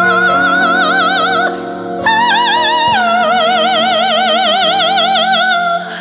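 High, wordless male singing in three long held notes with a wide, even vibrato, over a backing track of sustained chords. The second note is the highest and shortest, and the last is held for almost three seconds before breaking off.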